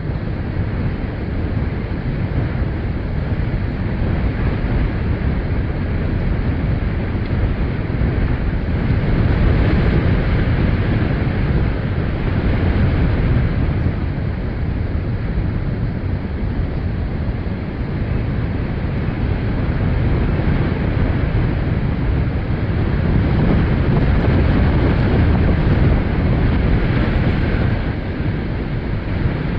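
Storm wind buffeting the microphone: a loud, steady rushing noise, heaviest in the low end, that swells and eases every few seconds.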